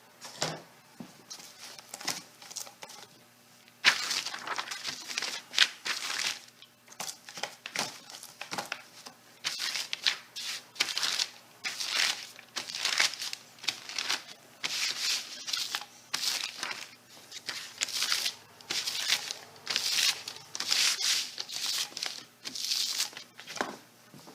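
Kraft paper crinkling and rustling as it is handled and worked over, in quick repeated strokes that start about four seconds in.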